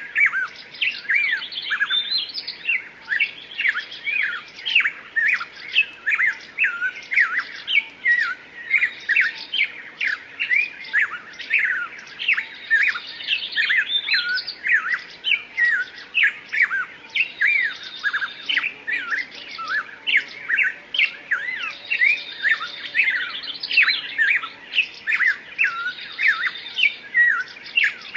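Many birds chirping and calling without pause, a dense overlapping stream of short notes that swoop up and down in pitch.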